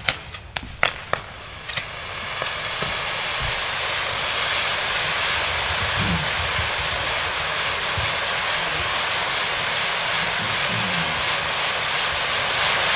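Firework fountain wheels burning together, an aluminium fountain sun in the middle and coloured titanium fountain pieces to either side: a few sharp pops at the start, then a steady, loud hissing rush that builds over about two seconds and holds.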